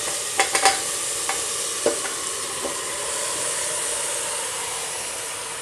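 Marinated potatoes and onions going into hot mustard oil and tomato purée in an aluminium pressure cooker, sizzling steadily. A few light clinks sound in the first two seconds as the food is tipped in.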